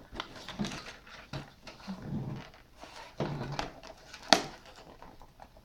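Handling of the GoPro HERO5's packaging while trying to open it: scattered small clicks and rustles, with a sharp snap about four seconds in. A couple of short low vocal sounds come in between.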